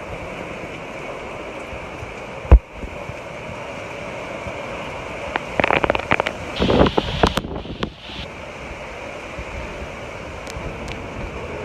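Strong hurricane wind blowing steadily, with gusts buffeting the microphone in a run of crackling bursts from about five and a half to eight seconds in. A single sharp knock about two and a half seconds in is the loudest sound.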